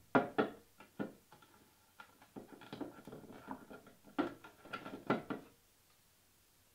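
Clicks and knocks of hard plastic parts of a Hurom Chef GH horizontal slow juicer being taken apart by hand to remove its strainer, a string of separate knocks with the loudest few near the end.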